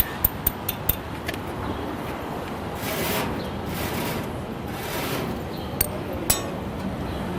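Objects being tapped and rubbed: a few sharp clicks with a brief high ring, then three rasping rubbing strokes about a second apart, then two more clicks.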